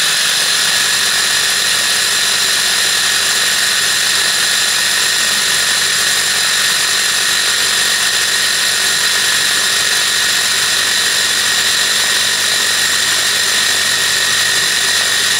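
Silvercrest hand blender's motor driving its chopper attachment, the blade finely chopping pineapple, onion and carrot in the plastic bowl. A steady, even, high whine with no change in speed.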